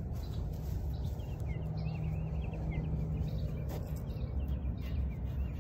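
Low rumble of wind and movement on a handheld phone's microphone. From about a second and a half in, a small bird chirps in quick, repeated short notes.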